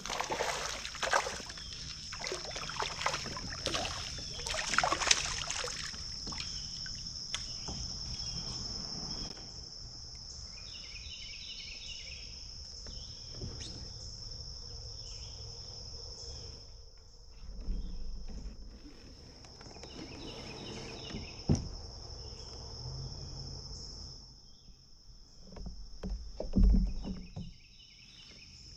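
A steady, high-pitched insect chorus, with water and hull noises from a kayak. The kayak noises are busiest in the first few seconds, and a couple of sharp knocks come later.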